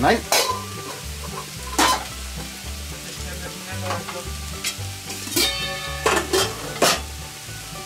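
Carrots, cucumber and mushrooms sizzling in a stainless steel pan, with several sharp pops and crackles of spitting fat.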